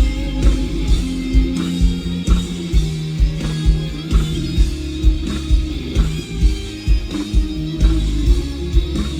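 Rock band playing live in an instrumental passage: guitar over bass, with a steady kick-drum beat about twice a second.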